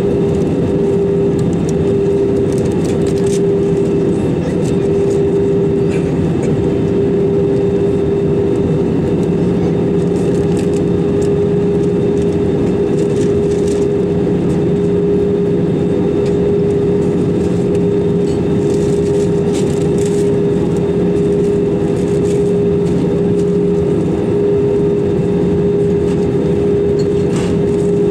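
Airbus A320-200 cabin noise in flight: a steady rush of air with a constant engine hum.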